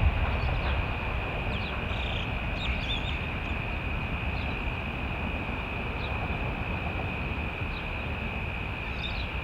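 Low, steady rumble of diesel freight locomotives heard from a distance, with a constant high-pitched drone and scattered bird chirps over it.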